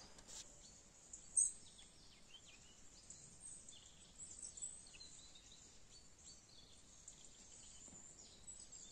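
Faint bird calls: many short, high chirps scattered throughout, over a quiet outdoor background, with a single sharp click about a second and a half in.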